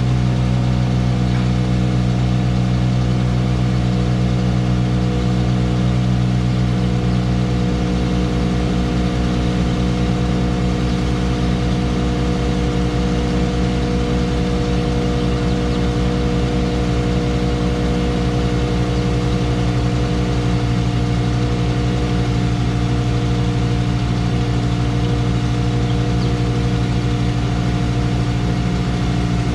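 Heavy equipment engine running steadily and close by, with an even, unchanging pitch that shifts slightly about eight seconds in.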